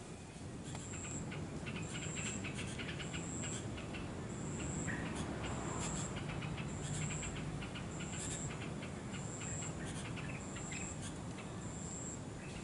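An insect chirping, a short high-pitched note repeated about once a second, over scattered short chirps and a low steady background hum.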